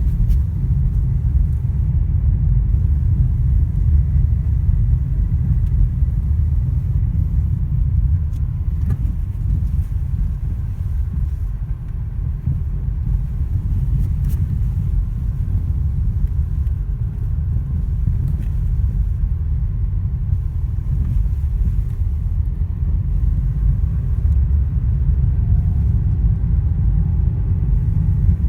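Lada Vesta driving over uneven road: a steady low rumble with a few sharp knocks from the suspension over the bumps, the suspension knocking the owner is recording.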